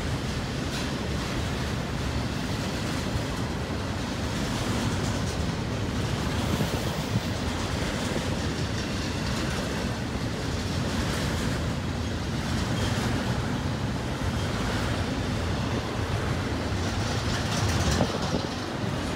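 Double-stack intermodal well cars loaded with shipping containers rolling past close by: steady steel-wheel-on-rail noise with a running rattle of the cars.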